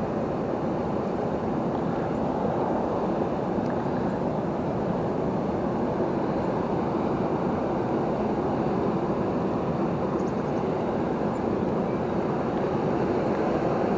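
Waterfall rushing steadily, a dense, unchanging roar of falling river water.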